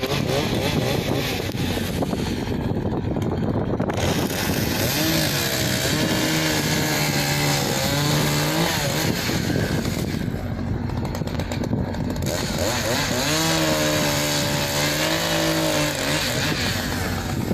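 Two-stroke chainsaw running under load while cutting a large pine, its pitch sagging and recovering as the chain bites, easing off briefly twice.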